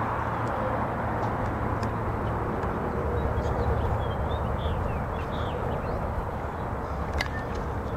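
Steady outdoor rumble and hiss, with a few short bird chirps in the middle and a sharp click near the end.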